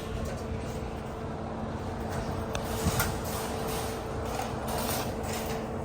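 Steady background hum with a faint steady tone, and a light knock about three seconds in.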